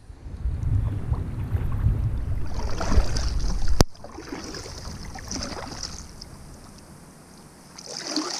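Kayak paddle dipping and splashing in shallow water, with wind rumbling on the microphone that stops abruptly about four seconds in.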